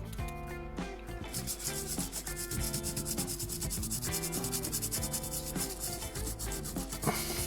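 Fast, even rubbing strokes, many a second, starting about a second in, with background music playing underneath.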